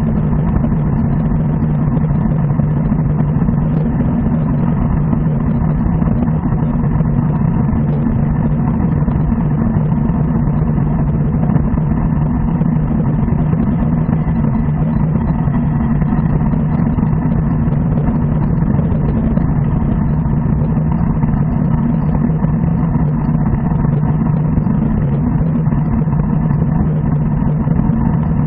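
Steady wind rush and tyre road noise on the microphone of a bike-mounted camera riding at about 37 km/h, a loud, even low rumble with no breaks.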